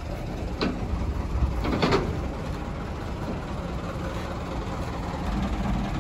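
Flatbed tow truck's engine idling steadily with a low rumble. A few short clicks and rustles come about half a second and two seconds in, as the plastic-wrapped scooter on the bed is handled.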